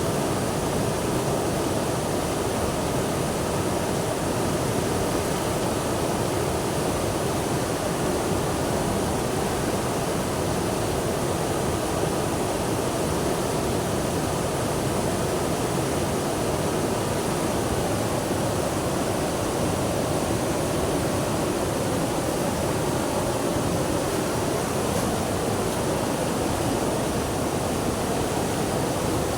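Water rushing steadily: an even, unbroken noise.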